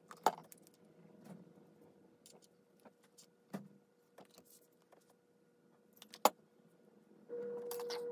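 Quiet handling of wooden popsicle sticks and a glue bottle on a desk: scattered soft taps and a few sharp clicks, the sharpest near the start and about six seconds in, over a faint hum. Near the end a louder steady hum comes in.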